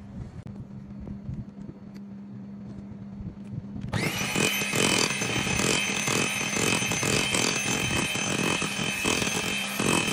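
Electric hand mixer starting up about four seconds in and running steadily with a high whine as its beaters whip cream to stiff peaks. Before it starts there is only a low hum.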